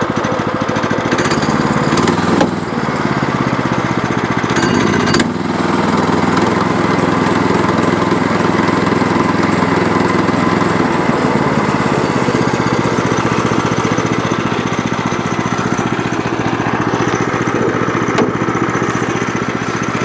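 Small gas engine of a Woodland Mills HM122 portable band sawmill running just after starting, its speed shifting as the throttle is opened and eased back, then settling to a lower steady idle after about eleven seconds. At that idle the clutch stays disengaged, with no clanking.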